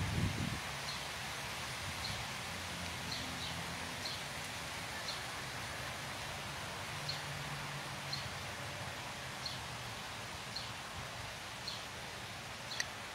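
Outdoor ambience: a steady background hiss with a bird's short high chirp repeating about once a second, and a faint low hum coming and going.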